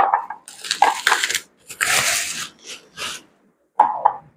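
Plastic packaging bags crinkling and rustling in several bursts as a vegetable slicer is handled and unwrapped.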